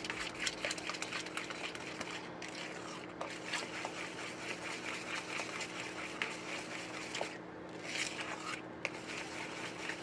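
Eggs beaten by hand with a wooden spoon in a mixing bowl of oil and sugar: quick, repeated wet slapping and scraping strokes.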